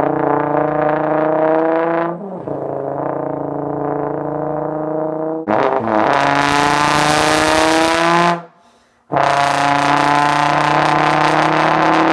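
Trombone imitating an American V8 engine speeding up: a buzzing tone whose pitch climbs, drops back once as if shifting gear, and climbs again. About halfway through it turns brighter and harsher to imitate a V8 with no muffler, in two rising runs broken by a short pause.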